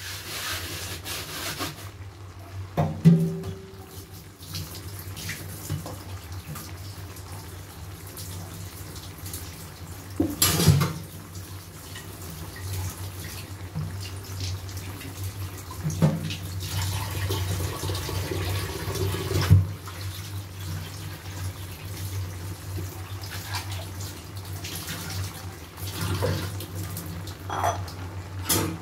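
Vegetable stir-fry simmering in its sauce in a steel wok over a burner: a watery simmer over a steady low hum, with a few sharp knocks scattered through.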